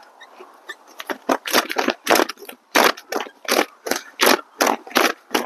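Training flag on a stick being shaken, its flag flapping and crackling in a steady rhythm of about three flaps a second, starting about a second in.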